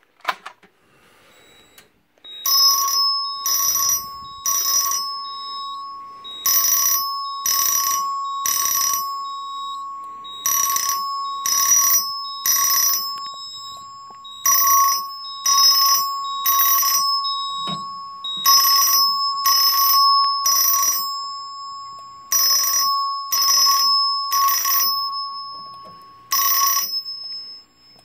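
Simplex 4080 fire alarm chime striking in coded groups of three (code 3), the panel's fire alarm signal: about one ringing strike a second with a pause of about two seconds between groups, over a steady high tone. After six groups a single strike sounds near the end, and the chime falls silent when the alarm is silenced. A snap as the pull station is pulled comes right at the start.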